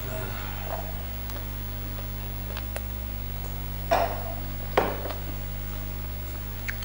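A person drinking from a glass, with two short, loud swallowing sounds about four and five seconds in, over a steady low electrical hum and a few faint small clicks.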